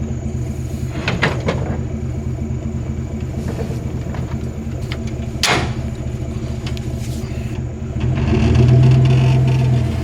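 Backhoe engine running steadily, with a sharp knock about halfway through; about 8 s in it revs up under load, then eases back.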